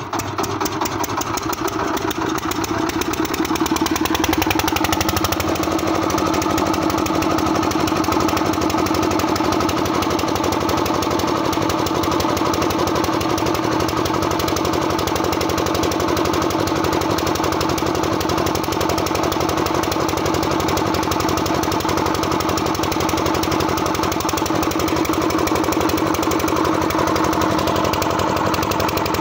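Single-cylinder stationary diesel engine that has just fired up, picking up speed over the first few seconds and then running steadily with a rapid, even knocking beat. It is running while its fuel injection pump setting is being adjusted.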